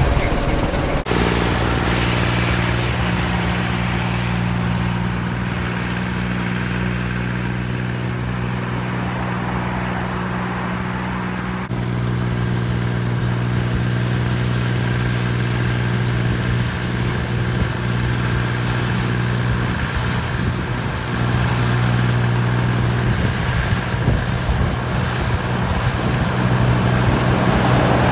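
Kubota L2402DT-M tractor's diesel engine running steadily at road speed, a low even drone with tyre and road noise. A heavy truck passes near the end, adding louder traffic noise.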